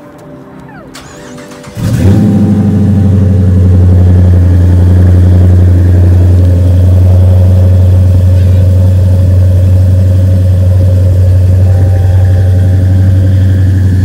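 Dodge Charger R/T's 5.7-litre HEMI V8, fitted with aftermarket headers, starting up about two seconds in with a sudden loud catch, then idling steadily with a deep, loud exhaust note.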